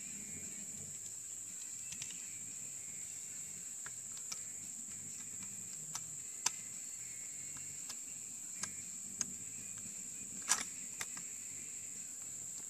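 Steady high-pitched chorus of crickets and other insects in the field grass, with a scatter of light clicks and knocks from the bolt-action rifle being handled at the bench. The sharpest click comes about ten and a half seconds in; no shot is fired.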